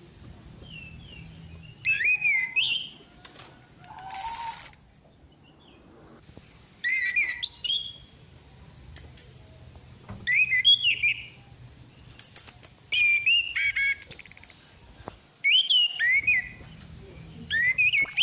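Female orange-headed thrush calling: short whistled phrases that slide up and down, repeated every two to three seconds. Between them come brief high, buzzy bursts, the loudest a little after four seconds in. The recording is played as a lure call to rouse male birds.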